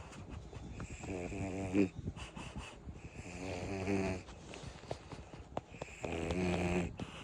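French bulldog snoring in its sleep: three snores, each about a second long, coming roughly every two and a half seconds.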